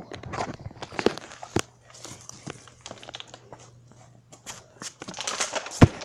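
Scattered rustling, crinkling and light clicks of things being handled and moved, with a sharper click about a second before the end.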